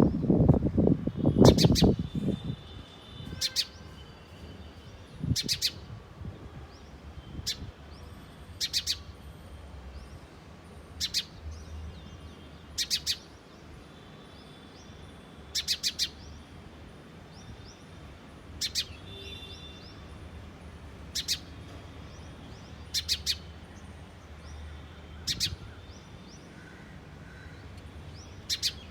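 House sparrow chirping: short single and double chirps repeated every one to three seconds. A loud low rumble fills the first two seconds.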